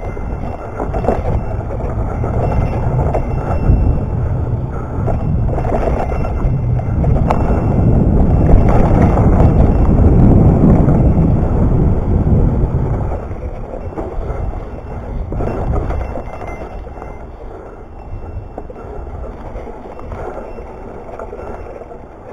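Wind rumbling on the camera microphone with tyre and trail noise as a bike rides over the trail, loudest about eight to thirteen seconds in, then easing off.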